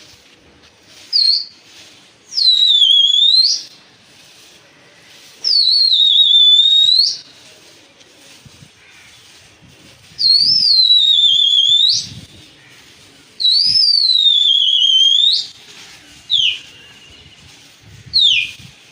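A person whistling loudly and repeatedly, shrill swooping whistles that dip in pitch and then sweep sharply back up. There are four long whistles, each about a second and a half, and a few short ones near the start and end.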